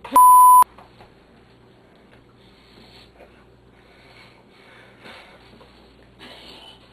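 A loud censor bleep: a pure steady beep of about half a second that starts and stops abruptly, blanking out a word cut off mid-syllable. After it there are only faint scattered noises.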